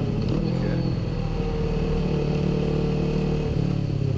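Kawasaki Ninja 650's parallel-twin engine running under way at fairly steady revs, heard from a bike-mounted camera, its note easing slightly about three and a half seconds in.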